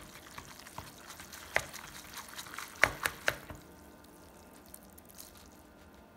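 A fork stirring and lifting wet instant noodles in a disposable cup: soft wet noodle sounds with sharp clicks of the fork against the cup. The loudest clicks come about a second and a half in and around three seconds in, and the stirring dies down after about three and a half seconds.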